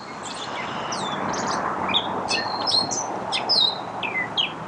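Gray catbird singing its rambling song: a quick, varied string of short whistles, squeaks and chirps, over steady background noise.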